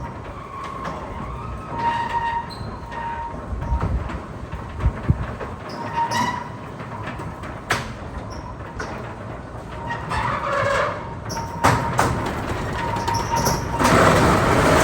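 Rumbling work noise with scattered sharp knocks and clanks, growing louder and busier near the end.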